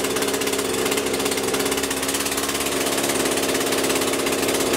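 Husqvarna 120 Mark II chainsaw's warm two-stroke engine idling steadily while the idle is set at the carburettor's T screw; the engine note shifts slightly about halfway through.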